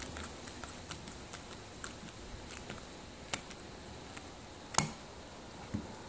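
Faint small clicks and ticks of a screwdriver turning the screw on a metal jumper cable clamp and of the clamp being handled, with one sharper click a little before the end.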